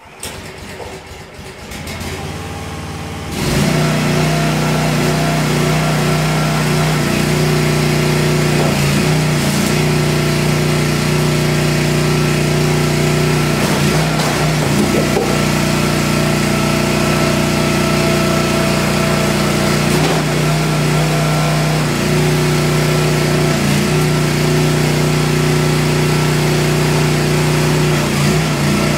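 Engine of a homemade 25-ton hydraulic log splitter starting up and coming up to speed over the first few seconds, then running steadily as it drives the hydraulic pump. Its note wavers briefly a few times as the splitter works through logs.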